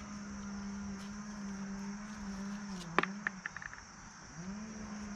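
A flying insect buzzing close by with a steady, low hum that wavers in pitch. The buzz drops out about three seconds in and glides back up a second later. A sharp click and a few light ticks of handling the grape vines come about three seconds in, over a steady high chirring of insects.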